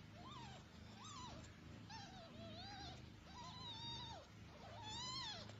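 Newborn kittens mewing: about six short, high-pitched calls that rise and fall in pitch, the loudest one about five seconds in.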